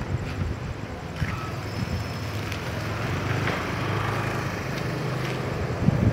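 Jet airliner on final approach: a steady engine rumble and rush that grows gradually louder over the first few seconds. A couple of low thumps come near the end.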